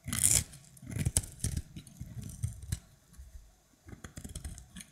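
Brittle dry soap crunching and crackling under hand pressure. One loud crunch comes right at the start, then irregular clusters of sharp little crackles.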